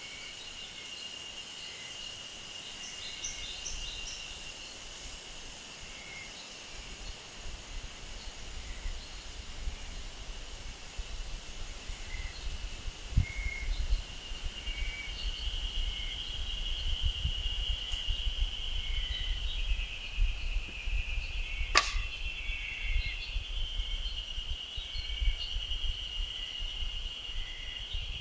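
Forest ambience: a steady high insect trill with short bird chirps over it and low wind rumble on the microphone, broken once about three quarters of the way through by a single sharp crack.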